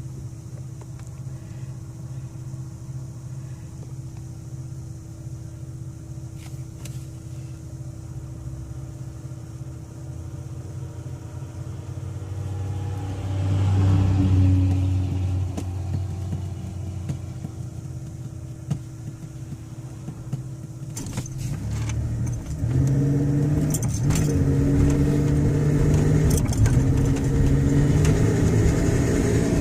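Car engine running with a bad misfire: it idles with a steady low hum, swells in a brief rev about 13 to 15 seconds in, and from about 22 seconds runs louder at higher revs, its pitch stepping upward. This is the engine the owner says makes an odd sound on acceleration.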